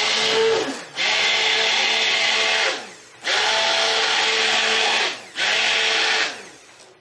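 Stick blender running in four short pulses of one to two seconds in a bucket of raw cold process soap batter, the motor's pitch sagging each time it is switched off. It is pulse-blending the oils and lye toward emulsification.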